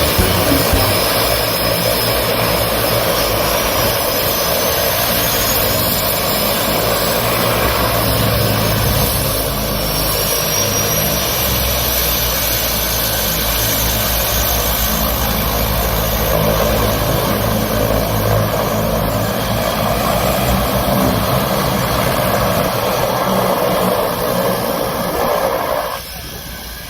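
Aircraft engine noise running steadily, a dense rushing sound with a faint high whine that rises slowly; it drops in level about a second before the end.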